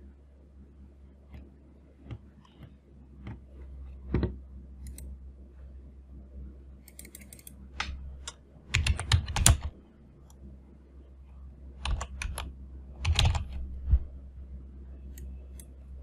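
Computer keyboard typing in two short bursts, about 9 and 13 seconds in, with scattered single key or mouse clicks before them, over a faint steady low hum.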